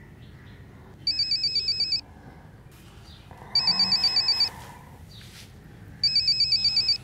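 Mobile phone ringing: three trilling electronic rings, each about a second long, about two and a half seconds apart.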